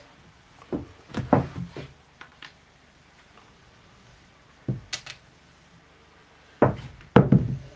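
Casino chips clacking and knocking as they are handled and set down on a craps table. A few separate clusters of short clacks, the loudest near the end.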